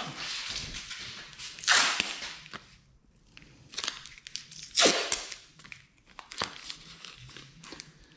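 Masking paper and masking tape crinkling and crunching as they are wrapped and pressed around a bike frame tube. There are two loud bursts, about two seconds in and about five seconds in, with small clicks and rustles between them.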